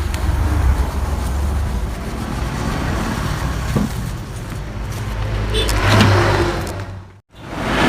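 Yamaha RX-King two-stroke single-cylinder engine running through a replica exhaust that has been hollowed out for a raspy, snoring note. The revs rise a little near the end, then the sound cuts out for a moment and comes back.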